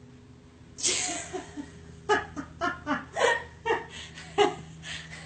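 A person laughing: a sudden outburst about a second in, then a run of short, quick laughs.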